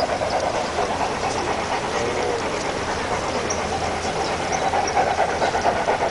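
Large-scale model steam locomotive chuffing rapidly with a hiss of steam as it hauls its train of freight cars along the track.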